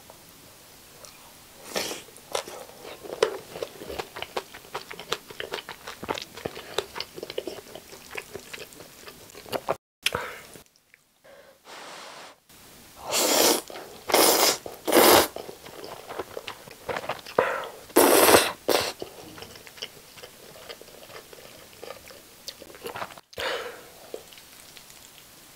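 Close-up eating sounds: chewing with small crunches of green onion kimchi and fried egg, then, after a brief dropout about ten seconds in, several loud slurps of jjajang instant noodles followed by more chewing.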